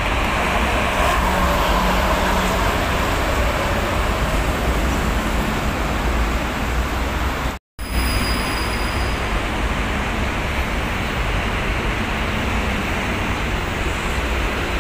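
Heavy toll-road traffic: buses, trucks and cars passing close by in a steady rush of tyre and engine noise. It cuts out for a split second about seven and a half seconds in.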